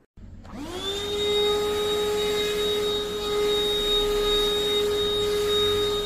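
Kadonio cordless handheld vacuum cleaner switched on: its motor spins up with a rising whine in the first second, then runs at a steady high whine with a rush of airflow.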